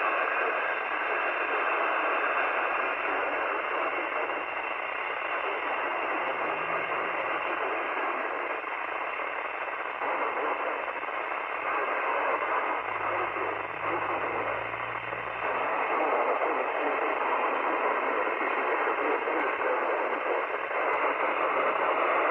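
Steady static hiss from a weather radio receiver tuned to a weak station, the noise filling the channel with little of the broadcast coming through.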